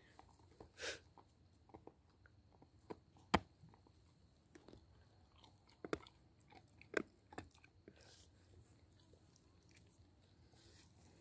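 A few faint, scattered clicks and ticks, the sharpest about three and a half seconds in, with other short ones around six and seven seconds.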